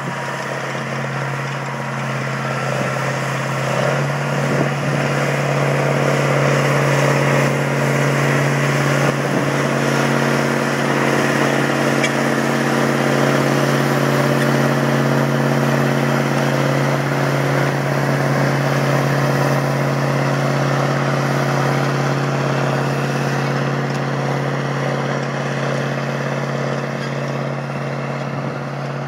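Ford FW-60 tractor's turbocharged Cummins 903 V8 diesel running steadily under load while pulling a cultivator. It grows louder as the tractor passes close by, then fades gradually as it moves away.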